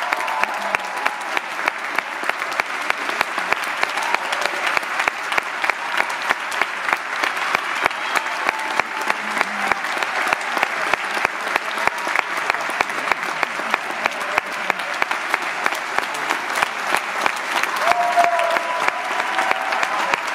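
Theatre audience applauding steadily after a ballet performance, with one pair of hands clapping close by, about three claps a second, over the general applause.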